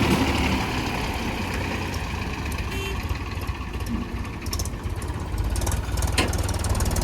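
Heavy diesel engine of earth-moving machinery running at idle, a steady low rumble.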